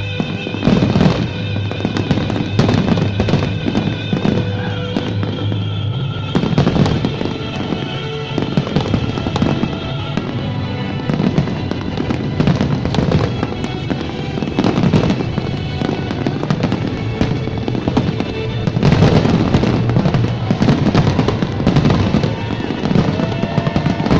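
Fireworks display with shells bursting in rapid, repeated bangs over music, the bursts coming thickest in the last few seconds.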